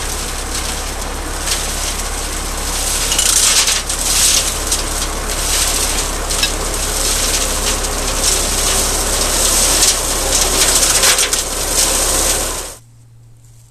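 A Teagle Dyna Cut 400 flail hedge cutter, driven by a Zetor 5545 diesel tractor, flailing brambles down at ground level. It makes a loud, dense whirring full of sharp ticks and crackles over the tractor's steady drone, and it cuts off suddenly near the end.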